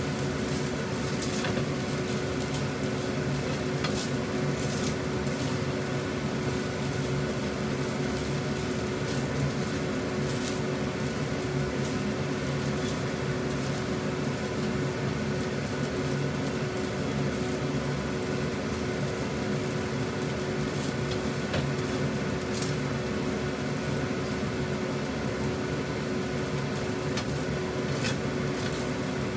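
Fried rice being stirred in a nonstick wok: a spatula scrapes and knocks against the pan now and then over a steady fan hum and hiss.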